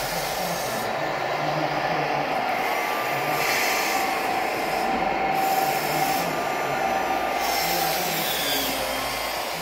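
Small electric motors of a radio-controlled Volvo EC160E model excavator whirring as its arm and cab move, with a faint whine that rises and falls twice, over a steady hum of other running model machines.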